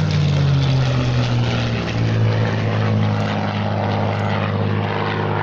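Propeller aircraft engines droning loudly. The pitch slides down over the first couple of seconds as the aircraft flies past, then holds steady.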